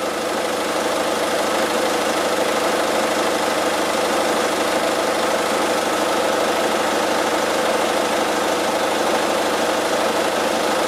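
Peugeot Partner's 1.6 HDi four-cylinder turbo diesel idling steadily, warm.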